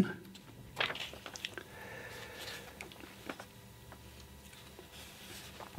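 A pause in speech, with a few faint clicks and a soft rustle close to the microphone in a small quiet room.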